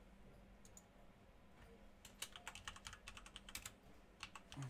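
Faint typing on a computer keyboard: a quick run of keystrokes from about two seconds in, and a few more near the end.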